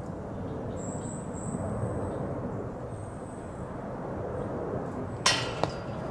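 Steady low outdoor rumble. About five seconds in comes one sharp knock that rings briefly, followed by a smaller click.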